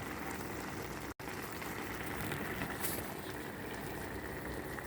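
Steady hiss of food simmering on the stove, with a faint steady tone above it; the sound cuts out for an instant about a second in.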